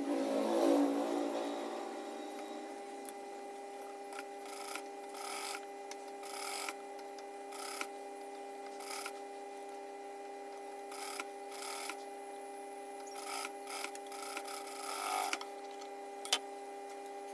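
Industrial single-needle sewing machine stitching a zipper into cloth in about a dozen short spurts of a few stitches each, over a steady faint hum. Near the end, one sharp snip of tailor's scissors.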